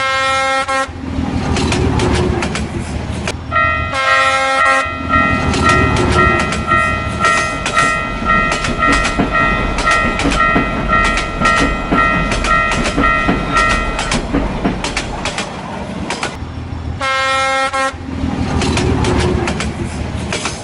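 Train passing a railway crossing: its horn blows three times, at the start, about four seconds in and near the end, over the rumble and clickety-clack of wheels on rail joints. A crossing alarm bell rings in a steady repeating pattern from about four to fourteen seconds in.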